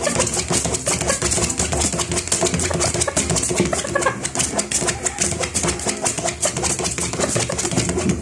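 A gamecock's claws scratching and clattering rapidly on a tabletop, with its wing feathers flapping, as it is worked back and forth in a kaskas conditioning drill to strengthen its leg strike.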